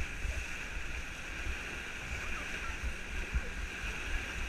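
Water rushing and splashing around a banana boat towed at speed, a steady hiss with wind buffeting the action camera's microphone in low, uneven gusts.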